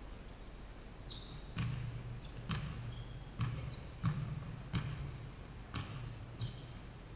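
A basketball dribbled on a hardwood gym floor, about seven faint, uneven bounces that echo in the big hall, with short high sneaker squeaks between them.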